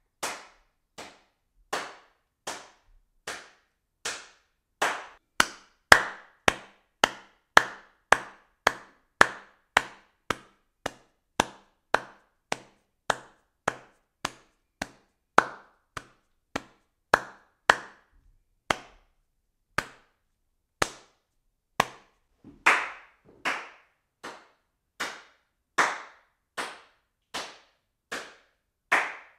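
A long series of single hand claps, one at a time, spaced about half a second to a second apart with quiet between them. Each clap is sharp and short, and some are louder than others.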